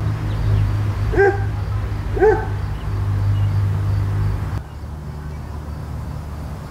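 A dog barks twice, about a second apart, over a steady low hum that drops away sharply after about four and a half seconds.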